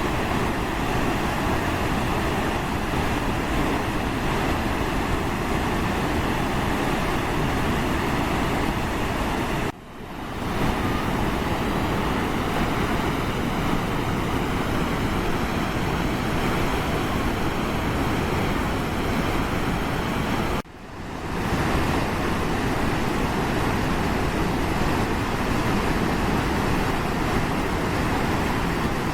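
Steady, loud roar of a waterfall's falling water, with no rhythm or swells. It dips sharply and fades back in twice, at about 10 and 21 seconds.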